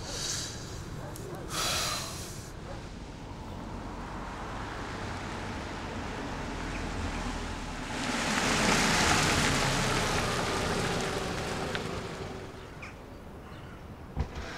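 A car driving up: engine and tyre noise swell about eight seconds in, peak, and fade away by about twelve seconds.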